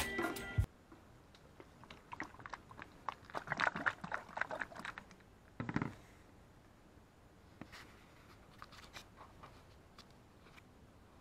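Hands working in a car's engine bay: scattered small clicks and crinkly rustling handling noises, busiest in the first half, with one short soft knock near the middle.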